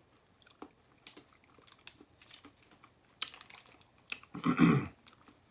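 Man chewing a chewy granola protein bar: faint, irregular wet clicks and smacks of the mouth working through sticky caramel and nuts, with a short, louder throat or mouth sound near the end.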